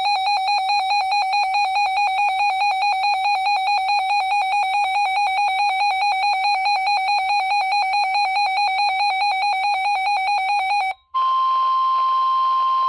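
A weather radio's alert alarm sounds a loud, rapidly pulsing electronic beep, about four pulses a second, for some eleven seconds, signalling a received warning. It then cuts off and the NOAA Weather Radio 1050 Hz warning tone sounds steadily from the broadcast.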